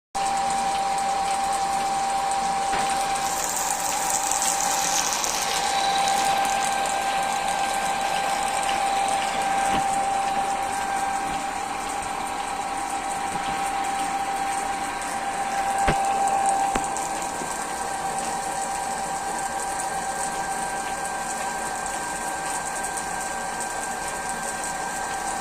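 Homemade lathe running: a steady, high-pitched motor whine over a constant rushing noise, with a few sharp clicks along the way.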